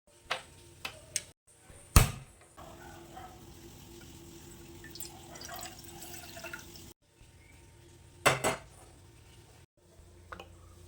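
Kitchen preparation sounds: sharp clinks and knocks of dishes and utensils, the loudest about two seconds in and a double knock past the eight-second mark, with a few seconds of running water in between.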